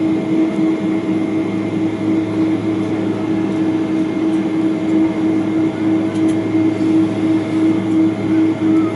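Steady cabin hum of a jet airliner on the ground with its engines at idle: an even rush of noise under a few constant droning tones, with no change in pitch or level.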